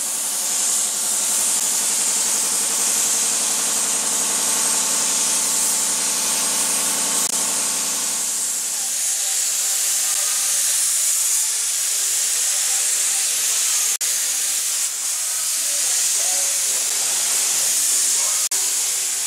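Compressed air hissing steadily through a gravity-feed paint spray gun as it sprays paint. A lower steady hum with several tones sits under the hiss for about the first half. The hiss cuts out for an instant twice near the end.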